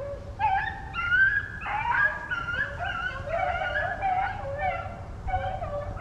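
A pack of rabbit hounds baying together, several dogs' voices overlapping as they run a freshly jumped rabbit.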